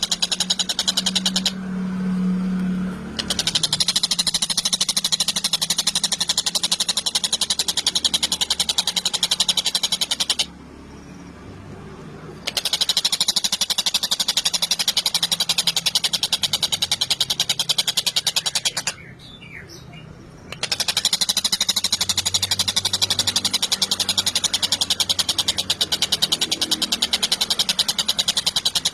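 Tengkek buto kingfisher calling in long, very fast rattling trills, in three bouts with short pauses about ten and nineteen seconds in.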